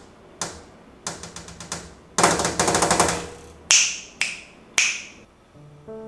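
Fingernails tapping and clicking on the plastic body and touchscreen of a small wireless-microphone receiver: a few single clicks, a quick run of clicks, a dense rattle of clicks, then three louder taps with a short ringing tail. Soft background music comes back in near the end.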